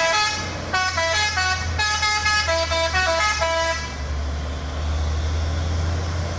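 A Fuso dump truck's modified multi-tone musical horn plays a quick melody of short stepped notes, stopping about four seconds in. After that the truck's engine keeps running as a steady low rumble.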